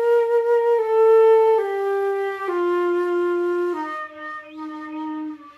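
Concert flute playing a slow descending scale of about six held notes, each one lower as more fingers close the keys and lengthen the sounding tube.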